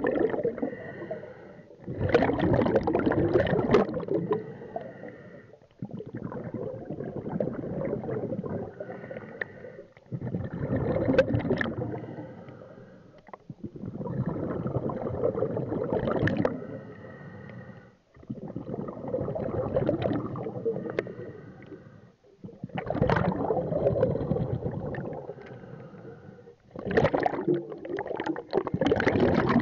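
Scuba diver breathing underwater through a regulator in a regular cycle about every four to five seconds. Quieter hissing draws alternate with louder rushes of exhaled bubbles, separated by brief pauses.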